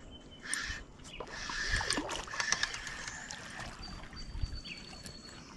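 A hooked bass splashing at the water's surface in irregular bursts as it is drawn in to the bank to be landed.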